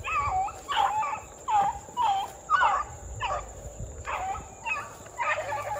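Beagles giving tongue on a rabbit's trail: short, bending bawls, one to two a second.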